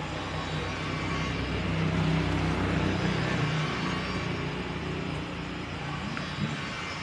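A motor vehicle's engine running close by, a steady low rumble that grows louder about two seconds in and then fades a little as it passes.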